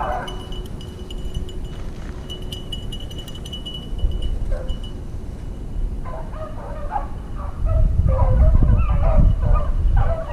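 Beagles baying on a rabbit trail, bursts of yelping calls from about six seconds in, with a low rumble on the microphone near the end.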